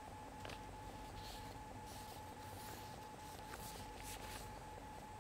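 Faint background noise: a steady thin whine over a low hum, with a few soft clicks.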